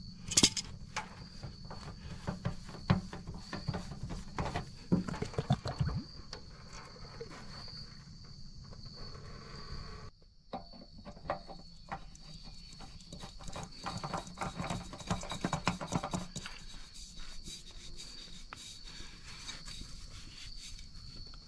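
A steady high insect trill runs throughout, over scattered clicks, taps and rubbing as a spin-on hydraulic oil filter is unscrewed by hand and a new one is screwed onto the wood splitter's filter head. The sharpest clicks come in the first few seconds.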